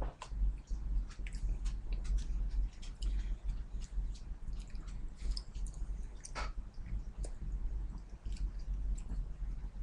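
Someone eating ice cream with a spoon close to the microphone: scattered clicks and scrapes of the spoon against the bowl and mouth, with wet eating sounds, over a steady low hum.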